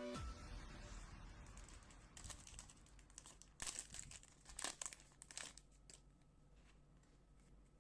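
Faint crinkling of a trading-card pack's plastic wrapper being handled, in short crackly bursts about two, three and a half, and four and a half to five and a half seconds in.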